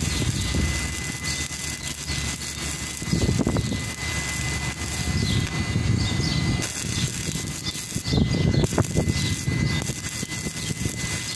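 Stick welding: the electrode's arc crackling and hissing steadily, with sparks flying, over a low rumble that swells and fades every few seconds.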